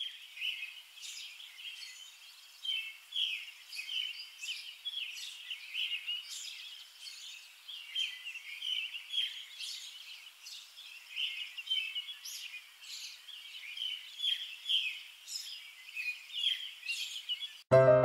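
Many small birds chirping and singing at once, a dense, irregular chorus of short high calls. Piano music cuts in right at the end.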